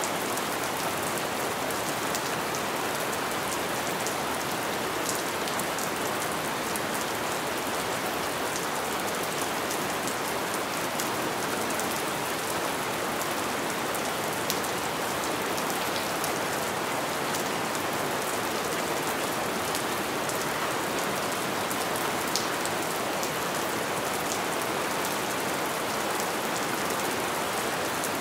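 Light rain falling steadily: an even hiss of many small drops pattering, with a couple of sharper single drop hits.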